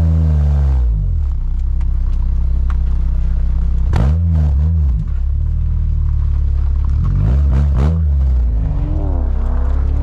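Honda Civic Type R EP3's four-cylinder engine through a Tegiwa 4-2-1 manifold and silenced 70 mm exhaust, its revs falling as the car slows and then running at low revs. There is a quick rev blip about four seconds in and a couple more near the eight-second mark.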